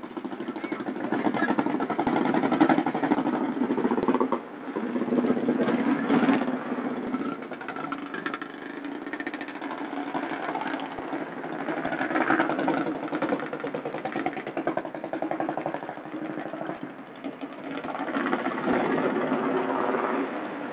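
A vehicle engine running near idle, its speed swelling and easing off several times, with people talking over it.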